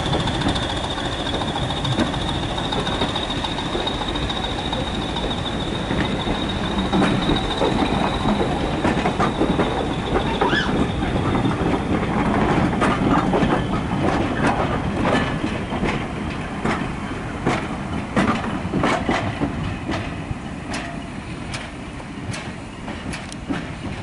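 Passenger coaches of a train hauled by a Class 20 diesel locomotive rolling past and pulling away, their wheels clicking irregularly over the rail joints. A high steady whine fades out about halfway through, and the clicking and rumble die down near the end as the last coach passes.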